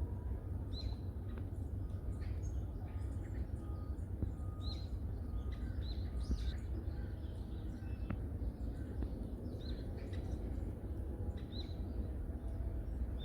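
Wild forest birds chirping, with many short high calls scattered throughout, over a steady low background rumble.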